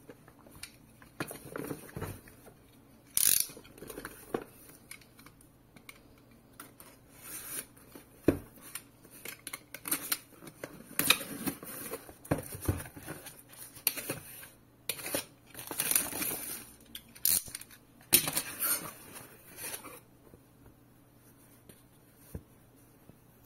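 A cardboard box being unboxed by hand: a utility knife cutting at it and the cardboard and packaging scraped, torn and rustled, in a run of short irregular scrapes and taps that die down near the end.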